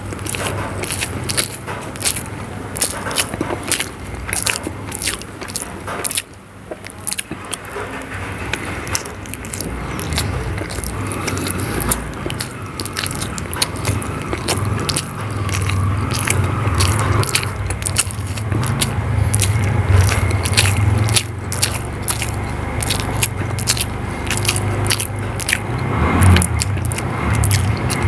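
Close-up chewing and biting of hard-boiled eggs in spicy gravy, with many quick mouth clicks throughout.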